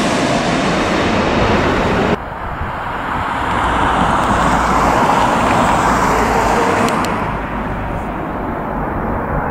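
Jet airliner engine noise: the rushing of a twin-engine widebody that has just passed overhead with its gear down, cut off abruptly about two seconds in. It gives way to the rumble of a four-engine widebody airliner approaching to land, building and then easing slightly near the end.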